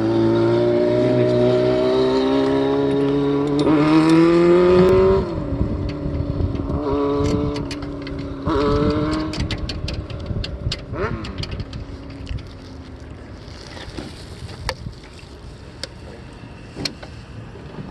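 A vehicle engine running with a steady pitched whine that rises in pitch about four seconds in and cuts off abruptly about a second later. Shorter pitched bursts follow, then scattered sharp clicks and knocks.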